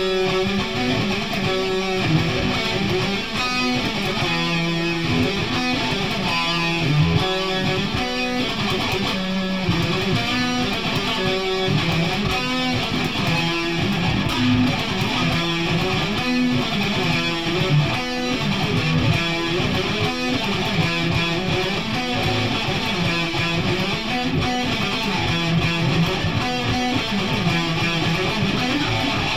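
Guitar music: an electric guitar strummed steadily, with changing notes and chords and no let-up.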